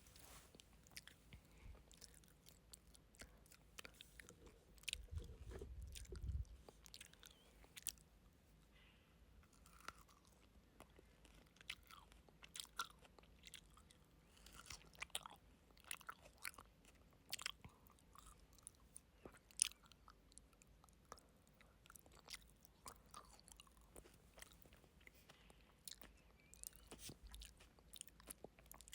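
Close-miked chewing of frozen grapes: scattered crunches and small crisp clicks, with a breath blowing into the microphone about five seconds in.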